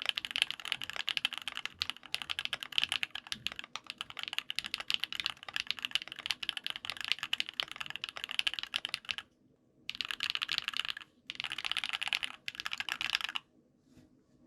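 Typing on an OwLab Voice65 gasket-mount keyboard with lubed C³ Tangerine linear switches, an aluminium plate and Infinikey keycaps: fast, steady keystrokes, then after a short pause about nine seconds in, three quick bursts of typing before it stops.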